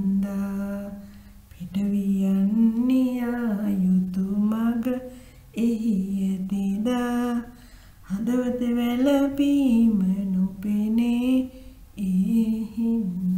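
A solo voice singing a slow, wordless melody, like a lullaby, in phrases of a few seconds with short pauses between them.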